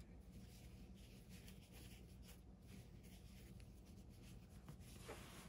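Faint rustling and rubbing of a fabric strip being wrapped around piping cord, over a steady low hum.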